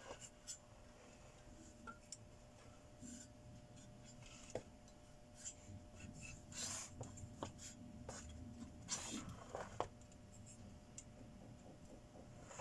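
Faint scattered clicks, taps and short scrapes of small metal parts and hand tools being handled, with a low steady hum underneath.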